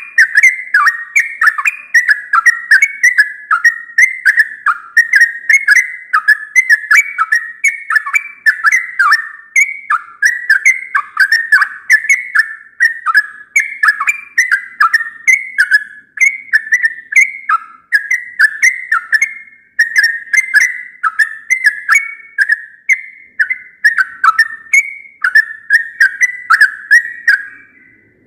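Yellow-vented bulbul (trucukan) singing a steady run of short, quick warbling phrases, one after another, stopping near the end.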